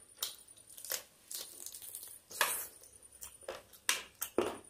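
Close-miked eating sounds: chewing and crunching chicken curry on the bone, in irregular crackly bites, loudest about halfway through and twice near the end.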